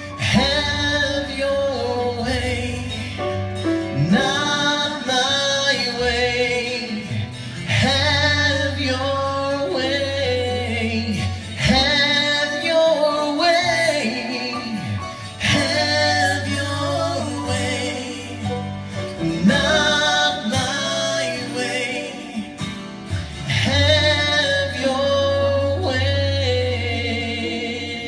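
Live worship song: a woman singing with vibrato over acoustic guitar and piano, the piano holding long low bass notes.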